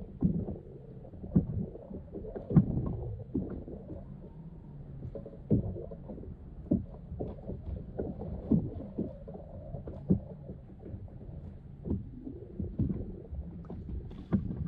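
Low rumble of water against a kayak hull, with irregular knocks and thumps.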